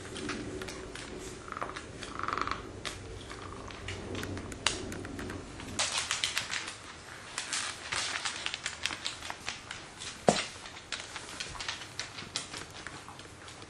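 Scottish terriers' toenails clicking rapidly on a hardwood floor as the dogs scramble about, the clicking thicker from about six seconds in, with one sharp knock about ten seconds in.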